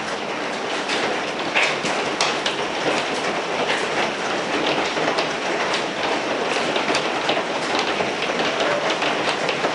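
Hailstorm: a dense, steady hiss of falling hail and rain, dotted with many sharp, irregular clatters of hailstones striking hard surfaces.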